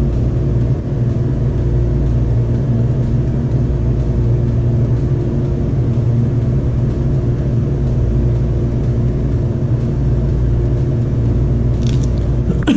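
A steady low mechanical hum that holds a few constant low tones, with a few light clicks near the end.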